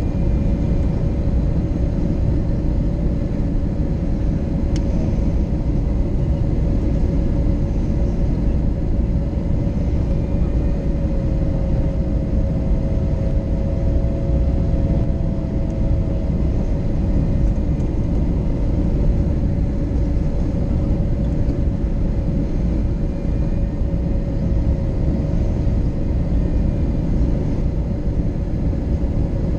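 Steady cabin noise of an Airbus A321neo on approach: a low rush of airflow and engine drone from its Pratt & Whitney PW1100G geared turbofans, with a steady mid-pitched hum running through it that wavers slightly about halfway through.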